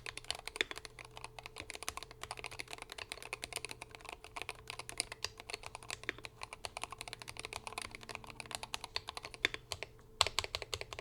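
Typing on a Glorious GMMK 3 Pro HE 75% keyboard fitted with hand-lubed Fox Red Hall-effect switches, stock plate and keycaps, tape mod and full foam: a steady rapid patter of keystrokes. Near the end there is a brief pause, then a quick flurry of keystrokes.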